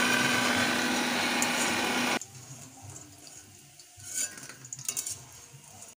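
Hot oil sizzling loudly as battered chicken pakoras deep-fry in a steel wok, with a steady hum underneath. The loud sizzle cuts off about two seconds in, leaving a quieter sizzle with a few light clinks of metal tongs.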